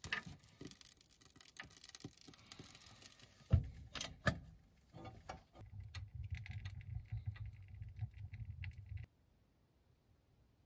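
Kindling crackling and snapping as a fire catches in a small Cubic Mini Cub wood stove, with a sharp thump about three and a half seconds in. A low rumble follows for a few seconds, then the sound cuts out.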